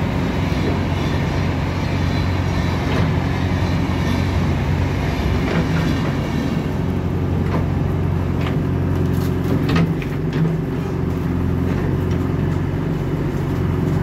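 JCB backhoe loader's diesel engine running steadily under load as the excavator arm digs, with a few knocks and scrapes from the bucket in the soil around the middle.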